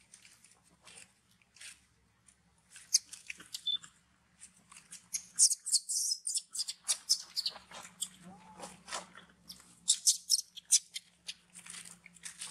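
Dry leaf litter crunching and crackling in quick, irregular clicks as macaques step on and handle the fallen leaves, densest about five to seven seconds in and again around ten seconds in.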